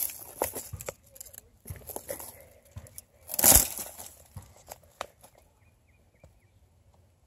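Footsteps through dry brush: sneakers crunching on dead leaves and snapping dry twigs in irregular crackles, with one louder crunch a little past the middle, then quieter, sparser ticks.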